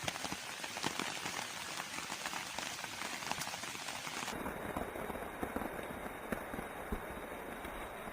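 Rain falling steadily, a faint patter of many small drops on a surface.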